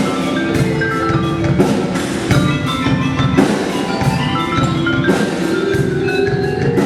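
Indoor percussion ensemble playing: marimbas and other mallet keyboards sound rapid runs of notes over drums, with some notes held low underneath.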